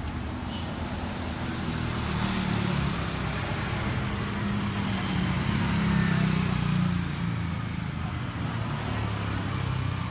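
Street traffic noise, with a motor vehicle's engine hum growing louder over a few seconds and then fading as it passes close by.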